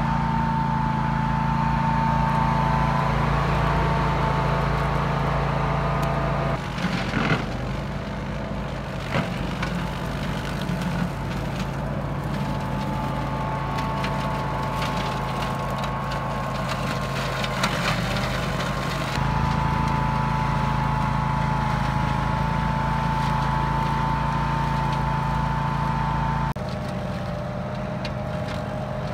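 Grillo Climber 10.27 AWD ride-on brush mower running steadily while its deck cuts through tall weeds and brush, with a few sharp cracks of woody stems being chopped. The engine note jumps abruptly a few times.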